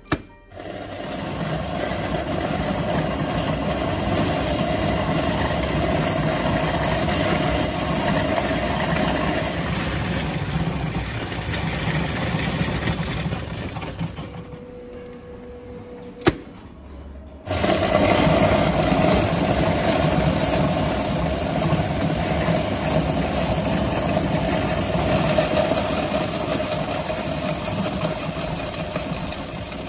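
Bank coin deposit machine running, its mechanism whirring and coins rattling as they are sorted and counted. About halfway through it goes quiet for a few seconds, with one sharp click, then starts up again.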